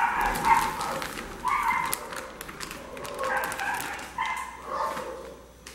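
A dog whining in about four short high calls, fading near the end, with light crackling from flour being poured out of its bag.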